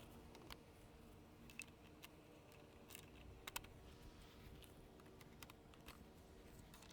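Faint, irregular light clicks and taps from plastic garden-bed brackets and stacking stakes being handled and fitted, over a low steady hum.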